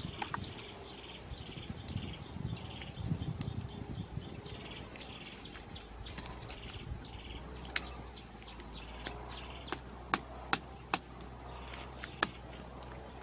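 Wood campfire with a handful of sharp pops in its second half. Under it runs a high, rhythmic chirping at about three pulses a second.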